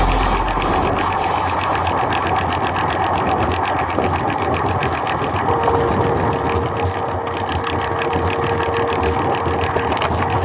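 Wind and tyre noise from a bicycle-mounted camera riding over a concrete path, with a steady fine rattle. A faint steady hum joins about halfway.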